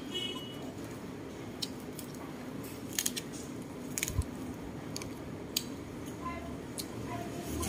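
Close-up eating of spicy-sauced squid: a scattering of sharp clicks and smacks from chewing and from handling lettuce leaves, over a steady background hum. A vehicle's engine rumble rises near the end.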